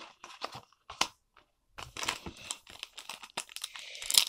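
A few light clicks of cards being handled, then a foil Pokémon booster pack wrapper crinkling and rustling in the hands from about two seconds in, loudest near the end.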